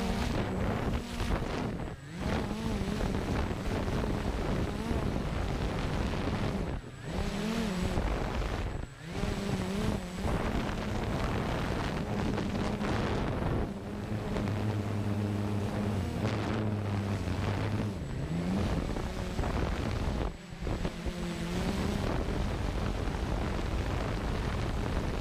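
A drone's motors and propellers whining, heard from its onboard camera, the pitch wavering up and down as it manoeuvres, with wind rushing over the microphone. The sound dips briefly a few times.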